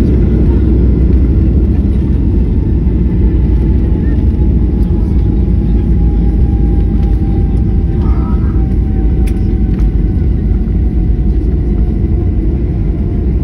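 Steady low rumble of a jet airliner heard from inside the cabin, with a faint engine whine slowly falling in pitch.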